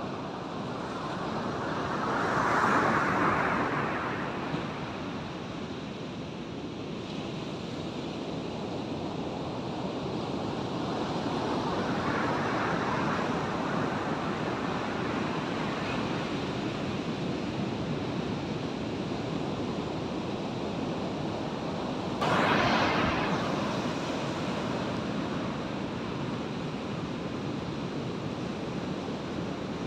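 Ocean surf breaking and washing up the beach: a steady rush with three louder swells as waves come in, roughly every ten seconds. The last, about two-thirds through, starts the most sharply.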